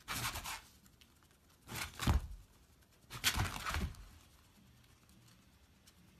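A dog's paws swiping and scuffing on a tatami mat in three short bursts, each with a low thump, as it paws at a hedgehog curled into a ball.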